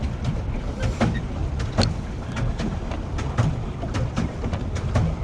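Pedal boat's pedal drive clattering as it is pedaled, with irregular clicks and knocks a few times a second over a steady low rumble.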